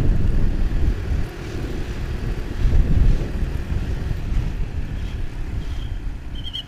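Motorcycle riding at speed: wind buffeting the helmet microphone over engine and road rumble.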